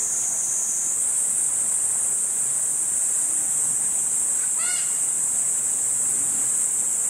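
Steady, high-pitched insect chorus buzzing without a break. About two-thirds of the way in, one short animal call with an arched pitch cuts through.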